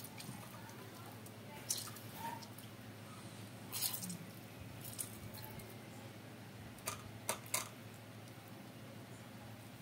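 Kalamansi halves squeezed by hand over a stainless steel mesh strainer: faint wet squishing, with a few short, light clicks and taps scattered through.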